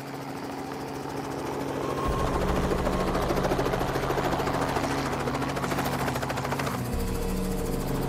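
Light helicopter flying in close, its rotor chop and engine growing louder over the first two seconds and then staying loud and steady.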